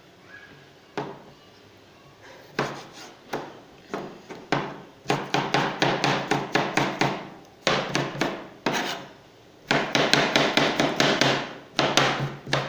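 Knife chopping vegetables on a cutting board: a few single strokes at first, then fast runs of strokes with short pauses between them.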